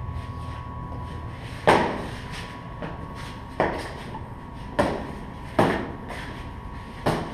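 Wooden fighting sticks clacking sharply together five times during stick-fighting sparring, each a hard knock with a short ring, spaced about one to two seconds apart.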